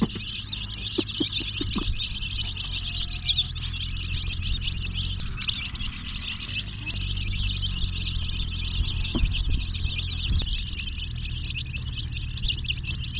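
A group of chicks peeping continuously, many short high chirps overlapping, over a steady low hum, with a few sharp clicks in the first couple of seconds.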